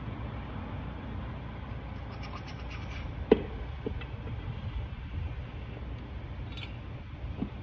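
A sharp knock about three seconds in, with a few lighter clicks around it, as TH350 transmission parts are handled during reassembly, over a steady low background noise.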